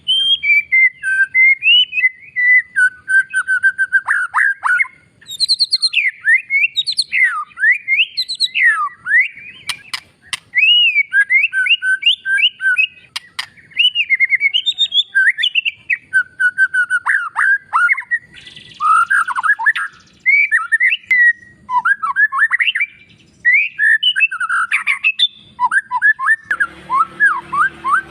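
White-rumped shama (murai batu) singing a long, varied song of loud whistled phrases: sweeping rising and falling notes broken by rapid chattering runs, with brief pauses between bursts. A few harsher, raspy notes come in near the end.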